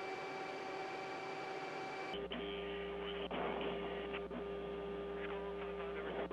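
Open radio or intercom channel with no one talking: a steady electrical hiss with several steady whining tones. About two seconds in it switches abruptly to a duller, narrower hum with a low drone and a few short crackles.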